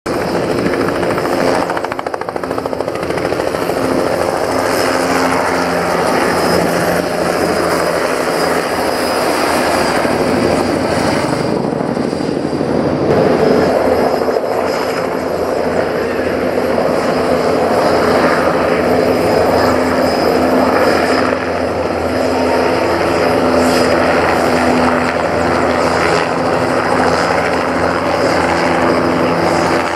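Bell 206 JetRanger helicopter's turbine engine and rotor running steadily, a continuous loud drone with a constant whine.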